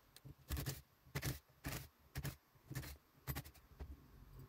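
Short clicks and knocks, about two a second, from handling the screws and cordless driver while taking the screws out of a wood lathe's metal faceplate.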